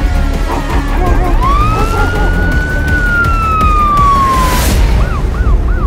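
Police car siren: a slow wail that rises and then falls in pitch, switching about five seconds in to a fast warble of several rises a second. A short hiss comes just before the switch.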